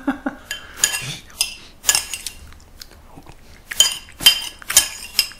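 Metal spoon clinking against a white ceramic bowl of gomtang as soup is spooned out: a string of short, sharp clinks at uneven intervals.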